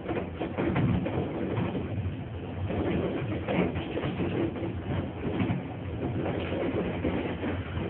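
Konstal 105-series tram running along its track: wheels clatter and knock on the rails over a steady low motor hum.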